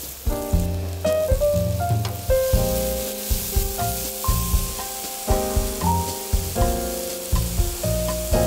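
Button mushrooms sizzling as they fry in a hot pan and are stirred with a wooden spatula, under background music of held, stepping notes.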